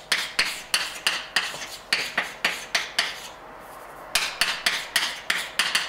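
Chalk tapping and scraping on a blackboard while a formula is written: a quick series of sharp strokes, about three or four a second, with a short pause a little past halfway.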